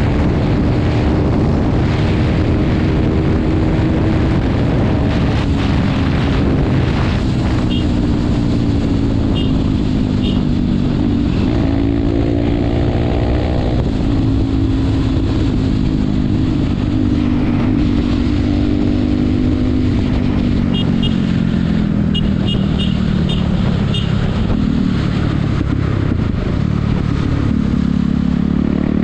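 KTM RC 390's single-cylinder engine running under way on the move, its pitch rising and falling with the throttle and climbing sharply near the end, over a steady rush of wind. A few faint short high beeps come through in the middle.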